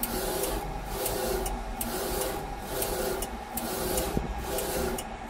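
UV flatbed printer (NC-UV0406) shuttling its print-head carriage back and forth across the bed while printing. Each pass is a motor whine and rail noise, with a sharp click about every three-quarters of a second as the carriage turns, over a steady low hum.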